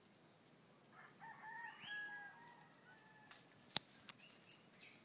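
A rooster crowing faintly: one long crow of about two seconds that steps up in pitch partway through. A single sharp click follows later on.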